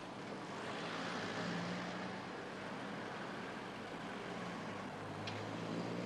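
Street traffic noise: a motor vehicle's engine running under a steady hiss of road noise, with a light click at the start and another near the end.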